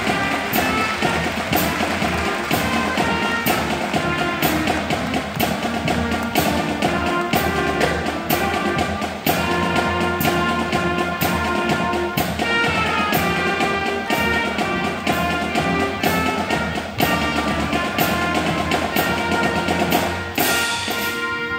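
School concert band playing a military medley, with drums keeping a steady march beat of about two strokes a second under the wind instruments.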